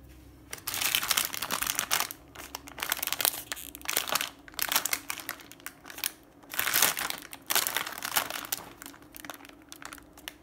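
Shiny plastic cookie-pack wrapper crinkling in a run of bursts as the sealed pack is picked up and turned over in the hands.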